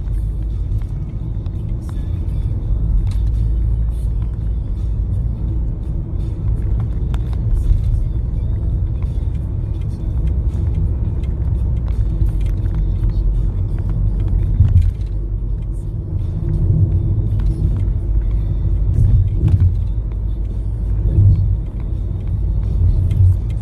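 Steady low road rumble and engine noise heard from inside a moving car's cabin, with faint music under it.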